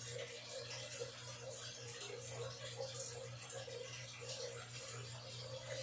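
A man gulping beer from a glass in quick, repeated swallows, over a steady low hum.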